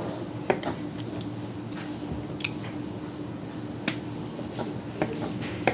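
Kitchen knife cutting squid on a cutting board: about five sharp taps at uneven intervals, over a steady low hum.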